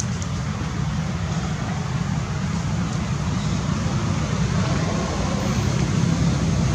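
Steady low rumble with an even hiss over it, getting a little louder late on; no distinct calls or knocks stand out.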